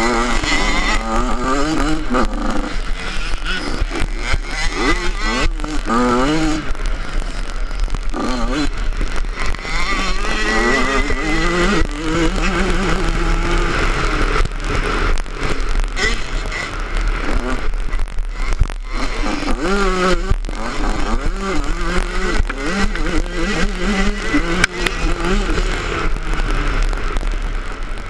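Yamaha 85 two-stroke motocross bike engine, heard close up, revving hard and falling off again over and over as the rider accelerates, shifts and backs off through the turns.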